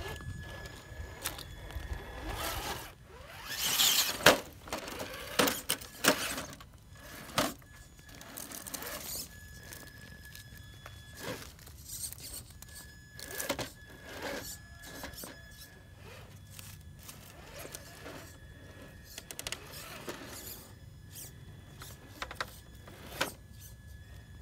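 Traxxas TRX-4 Sport RC rock crawler with a brushed motor crawling over rocks. A thin high whine from the electric drive comes and goes with the throttle, over scrapes and knocks of tyres and chassis on stone. The loudest scraping and knocking comes about four seconds in.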